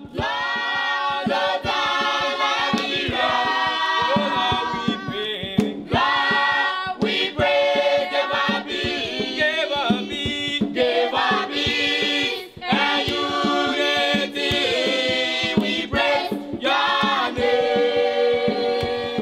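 A group of voices singing a song together as a choir.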